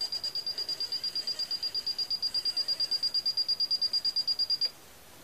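Electronic beeping from an Aqua M300 leak detector's touchscreen: a short, high-pitched beep repeating rapidly, about nine times a second, as a stylus holds down an adjustment control and the setting steps. The beeping stops abruptly about four and a half seconds in.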